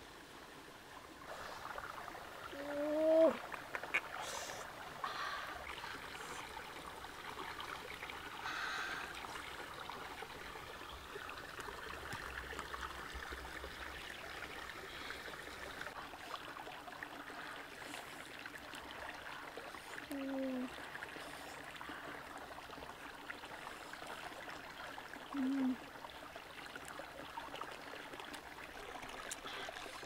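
Shallow stream running and trickling over rocks, steady throughout. Three short hummed sounds rise above it, about three seconds in, near twenty and near twenty-five seconds.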